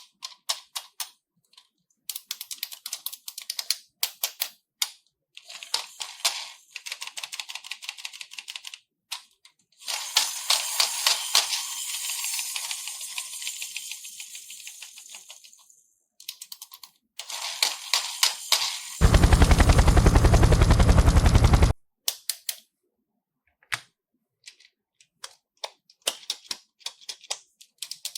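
Slime being pressed, poked and stretched by hand, giving trains of sharp crackling and popping clicks from air pockets bursting in the slime, in clumps with short pauses between them. A louder, denser buzzing stretch lasts a few seconds past the middle.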